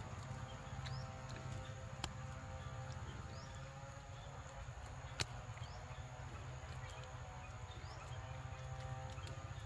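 Wet-forest ambience: a short rising chirp repeats about once a second over a steady low rumble, with a few sharp clicks, the loudest about five seconds in.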